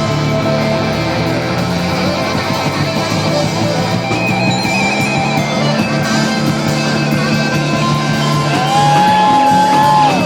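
Live rock band playing with electric guitar. Near the end a high note slides up and is held for about a second and a half.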